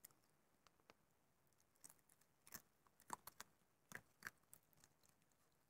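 Baby raccoon chewing bacon: faint, irregular clicks of chewing, coming more often in the second half.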